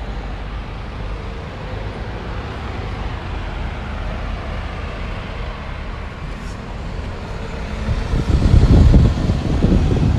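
Road traffic with a double-decker bus passing close by. In the last couple of seconds a loud, ragged low rumble of wind buffeting the microphone rises over it.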